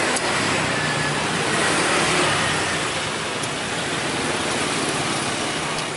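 Jet airliner passing low overhead: a loud, steady engine noise with a faint high whine, swelling to its loudest about two seconds in and then easing off a little.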